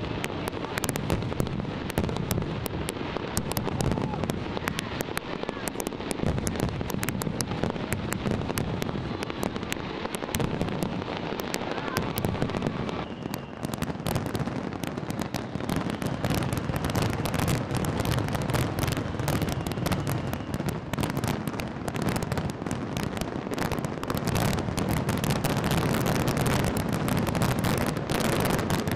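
Large fireworks display: a continuous run of overlapping bangs and crackles over a low rumble. It grows denser and busier from about halfway on.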